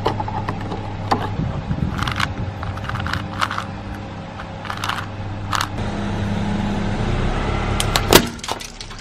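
A car engine running slowly under a scatter of sharp cracks and crunches as the tyre rolls over objects, the loudest crack near the end.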